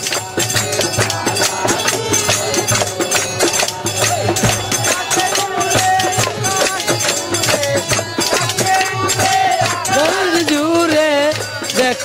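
Live Bengali folk devotional music: a double-headed hand drum beating a fast, steady rhythm under a melody line, in an instrumental passage between sung verses.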